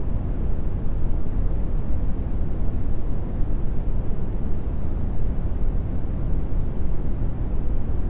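Steady brown noise: a deep, even rumbling hiss, strongest in the bass and fading toward the highs, with no changes or events.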